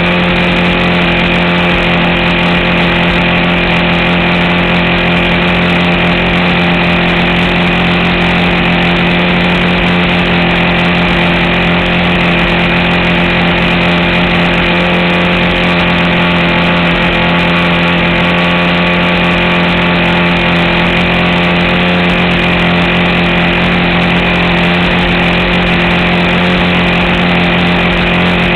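RC model airplane's motor and propeller running at a steady pitch in cruising flight, heard up close from the landing gear.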